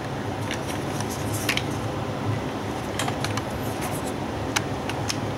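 Fingers handling a plastic toy belt buckle, giving a few light clicks and taps over a steady low hum.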